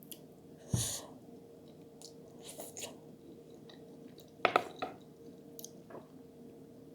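Close-up eating sounds of someone chewing cheesy lasagna. There is a knock with a dull thud about a second in, and a few sharp clicks; the loudest cluster comes about four and a half seconds in. A faint steady hum runs underneath.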